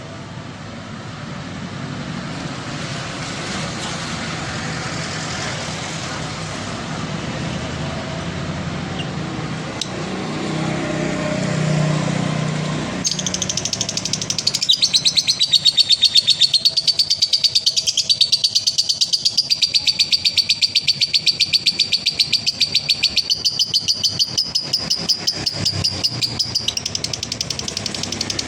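A male lovebird sings a long 'ngekek' chatter, a high, rapid, evenly pulsed trill held for well over ten seconds. It starts about halfway in, after a steady rush of background noise that swells just before the bird begins.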